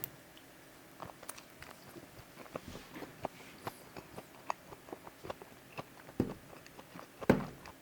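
Close-miked chewing of a hot dog: soft, irregular mouth clicks and smacks, with two slightly louder ones near the end.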